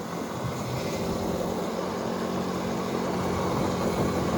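Small 110cc pit bike engine running steadily, mixed with wind and tyre noise from riding alongside it; it grows gradually louder.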